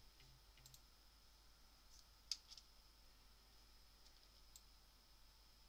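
Near silence with a few faint computer mouse clicks, the loudest about two seconds in, over a faint steady high-pitched hum.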